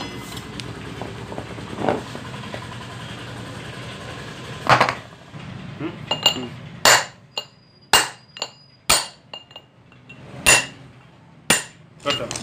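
Hammer striking the steel shaft and ball-bearing housing of a rotavator gearbox: one loud metal clank just before halfway, then a run of ringing metallic blows about half a second to a second apart, some hard and some light.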